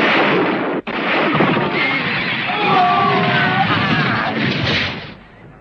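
Cartoon battle sound effects: a loud, dense din of gunfire and explosions with voices shouting through it, dying away about five seconds in.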